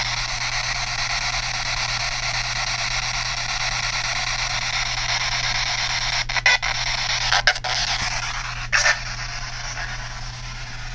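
PSB7 Spirit Box sweeping radio stations: a steady radio static hiss with a low hum, broken past the middle by a few brief clicks and short snatches of sound, one of which the user takes for a voice saying "Elizabeth".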